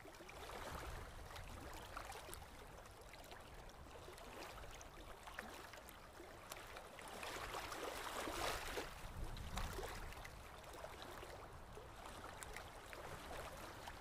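Faint running water trickling and gurgling, with small splashes, swelling a little around the middle.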